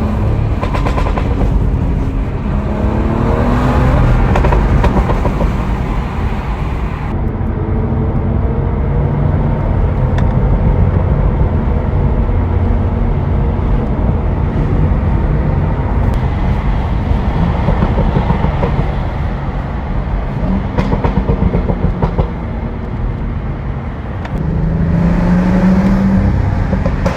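Stage 2 tuned BMW F30 with a manual gearbox, its engine pulling hard under acceleration. The note rises in pitch through each gear and falls back between pulls, several times over.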